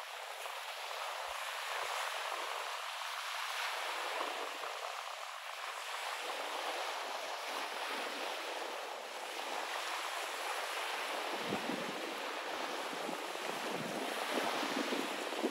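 Small sea waves lapping and washing close by, a steady rush of water with some wind.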